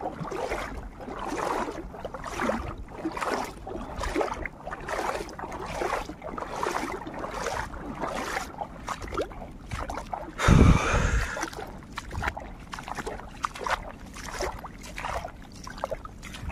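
Water splashing and sloshing in repeated short strokes beside a small boat, with one loud, deep bump about ten and a half seconds in.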